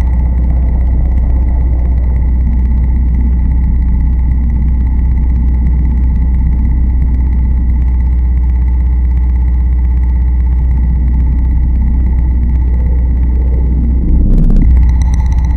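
Loud industrial noise drone: a heavy, steady low rumble under hiss, with thin steady whining tones riding on top. A faint set of held tones drifts in around the middle, and a brief louder surge hits about a second before the end.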